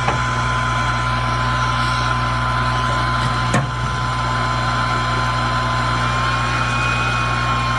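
Hot-air rework station running steadily with a constant whine and hum, as the loosened CPU is being lifted off the board; a single click about three and a half seconds in.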